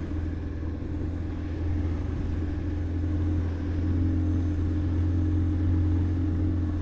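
Boat engine running steadily under way, a constant low drone with a steady hum above it.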